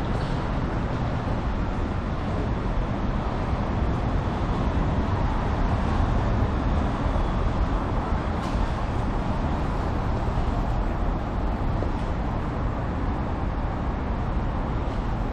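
Steady city road-traffic noise: an even, dense rumble with no single event standing out.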